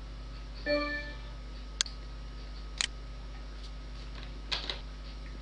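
A short pitched tone about a second in, then a few scattered sharp clicks, like computer mouse or keyboard clicks, over a steady low electrical hum.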